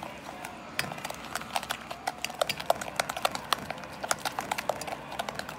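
Spatula beating egg into creamed butter and sugar in a glass mixing bowl: quick, uneven clicking knocks of the utensil against the glass, several a second, starting about a second in.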